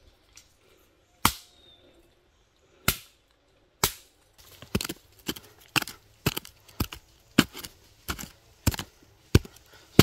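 A long-handled hoe chopping into earth and roots to dig out a bamboo shoot: three spaced strikes, then a quicker run of strikes about two a second.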